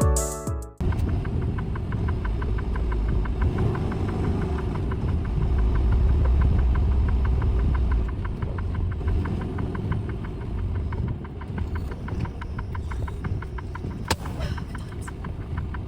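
Semi-truck diesel engine idling steadily, with a fast, even ticking clatter over a low drone. A single sharp click comes near the end.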